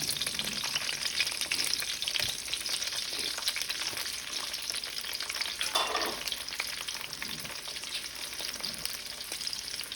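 Halved grape tomatoes frying in a hot pan: a steady sizzling, crackling hiss that eases slightly toward the end.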